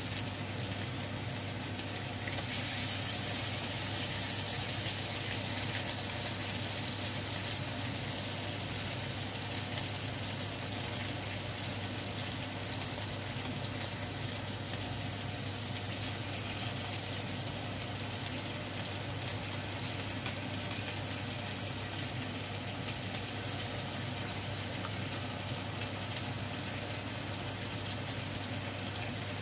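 Satay skewers glazed with sweet soy sauce sizzling steadily in a nonstick frying pan, a continuous hiss with fine crackles. A steady low hum runs underneath.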